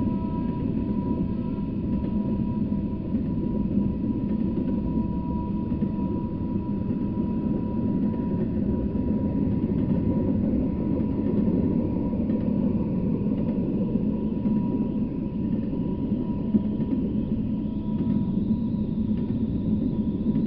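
Double-stack intermodal freight train rolling past, a steady rumble of wheels on rail with no break. A faint steady high tone runs underneath, and a faint high whine rises near the end.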